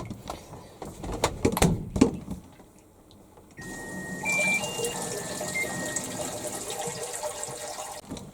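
A few clicks and knocks at the washing machine, then about three and a half seconds in water starts rushing into the tub as it fills. A short run of stepped electronic beeps plays over the start of the fill, and the water noise cuts off abruptly near the end.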